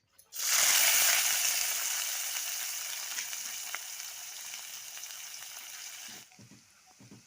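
Food hitting hot cooking oil in a pan: a sudden loud sizzle that slowly dies down, then cuts off abruptly about six seconds in.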